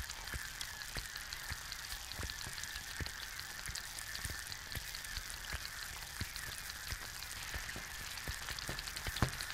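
An egg frying in a pan: a steady sizzle full of irregular small pops and crackles as bubbles in the white burst, with one louder pop near the end.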